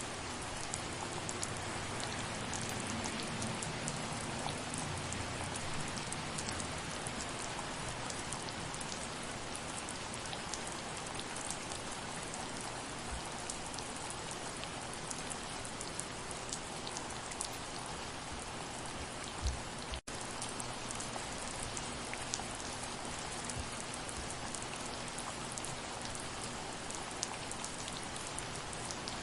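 Steady soft rain, with the ticks of individual drops close by over an even hiss. A single low thump about two-thirds through, followed by a split-second break in the sound.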